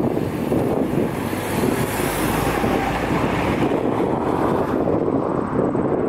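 Jet engines of a Boeing 747 freighter running as it moves along the ground, a steady dense noise with wind buffeting the microphone.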